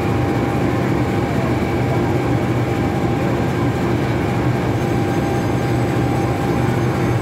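CC 206 diesel-electric locomotive idling: a steady low engine drone with a faint steady whine above it.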